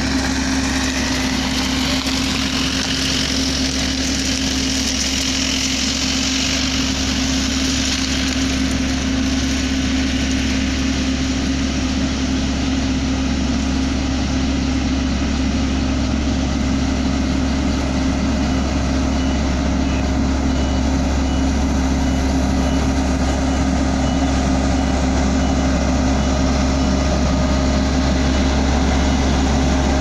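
Bomag BW 164 AD tandem roller's diesel engine running steadily as the roller works fresh asphalt, with a continuous low hum, growing slightly louder toward the end as the machine draws near.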